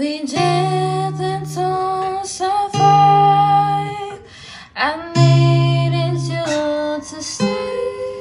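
A song with acoustic guitar and a voice singing long held notes.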